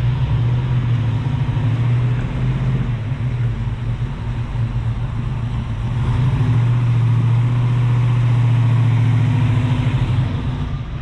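Car engine running at low speed with a steady low drone, growing louder in the second half and dropping off near the end.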